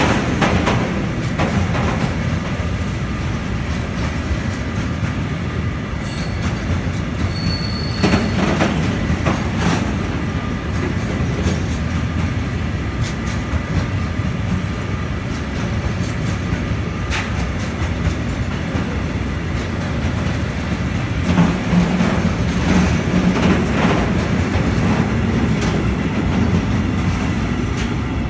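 Freight train of loaded tank wagons rolling past at close range: a steady rumble of steel wheels on rails, broken by irregular sharp clacks, with a brief high wheel squeal about seven seconds in.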